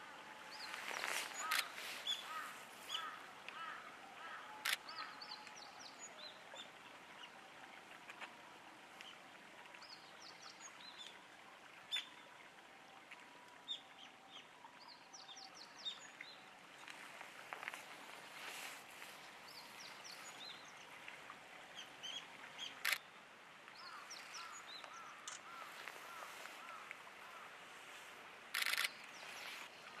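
Wild birds calling: repeated short chirps and quick series of notes, with a few sharp clicks and a louder burst of calls near the end.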